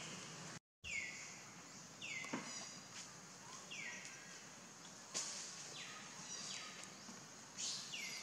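A bird calling again and again in short downslurred notes, roughly one a second, over steady outdoor background hiss, with a brief complete dropout near the start.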